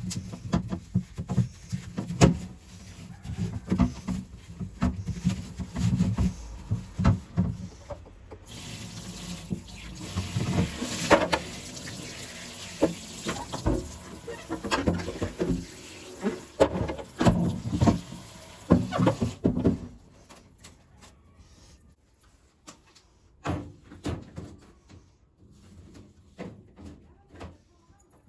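Kitchen handling sounds: containers and lids clicked, knocked and set down while a fridge is being sorted. A steady rushing hiss joins in for about ten seconds in the middle. Near the end only a few quieter knocks remain.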